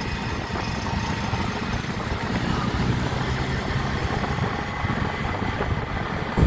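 A motor vehicle's engine running steadily, a low rumble with no horn melody sounding.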